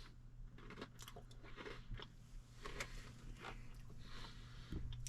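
A person chewing a crunchy vanilla Oreo cookie wafer, with soft irregular crunches and clicks, over a faint steady low hum.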